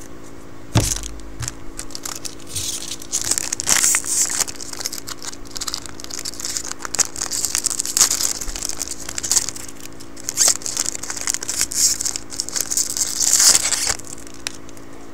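Foil wrapper of a trading-card pack being torn open and crinkled: a dense crackling that goes on for about eleven seconds and stops suddenly near the end. A thump comes about a second in.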